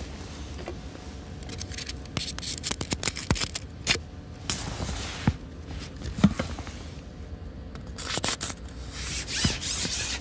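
Carbon fishing pole being pushed out over the water: scraping and rubbing with bursts of quick rattling clicks as the sections slide out.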